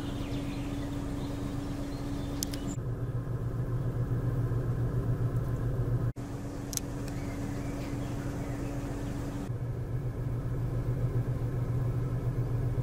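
A motor vehicle's engine running with a steady low hum. It breaks off for an instant about six seconds in.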